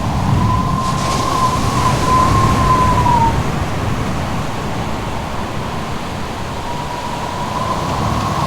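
Howling wind over a steady rushing roar, with a thin wavering whistle that holds near one pitch, sags and fades about three seconds in, then rises again near the end.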